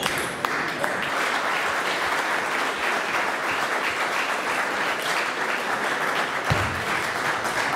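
Audience applauding steadily after a point in a table tennis match, with a dull thump near the end.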